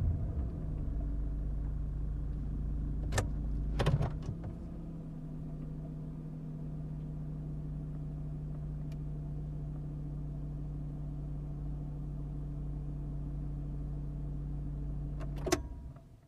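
Honda Accord heard from inside the cabin: the car comes to a stop and the engine settles into a steady idle, with a few sharp clicks about 3 to 4 seconds in. Near the end there is another click and the engine is switched off, its hum dying away.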